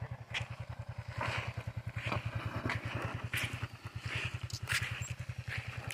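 Single-cylinder motorcycle engine idling with a steady, rapid putter, with scattered light clicks and scuffs over it.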